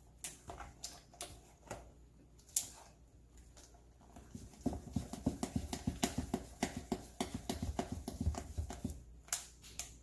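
Wooden spoon stirring a thick, half-cooked rice-flour and tapioca batter in a bowl, knocking against the sides. Scattered knocks at first, then from about five seconds in a quick, steady run of knocks, several a second, with dull thuds.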